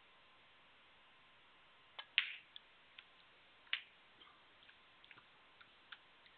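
Snooker balls clicking: the cue tip strikes the cue ball about two seconds in, the cue ball hits the black a moment later with the loudest click, and about a second and a half after that the black knocks into the pocket. A few faint ticks follow.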